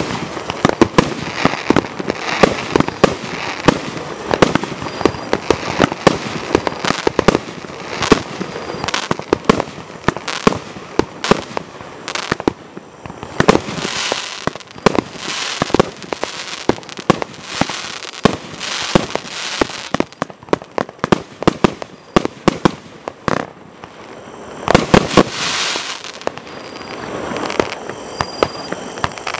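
Spook Fireworks Assassin 48-shot 1.3G barrage cake firing: a fast, uneven run of launch thumps and bursting bangs, several a second. A few longer stretches of crackling break in among the bangs as the stars burn out.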